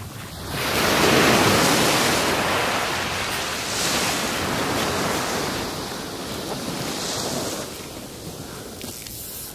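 Small surf breaking and washing up a sandy beach. It swells loudest about a second in, with smaller swells around four and seven seconds.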